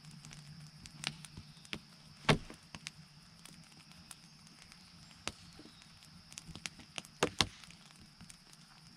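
Scattered knocks and clacks of wood being struck and handled at a campfire site: one loud knock about two seconds in and two loud knocks in quick succession near the end, with smaller taps between.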